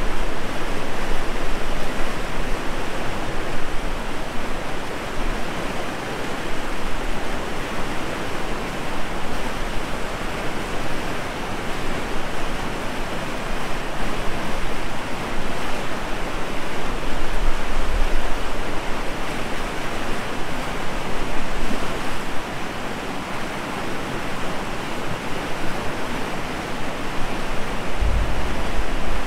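Loud, steady rushing of a fast, muddy river flowing under a footbridge.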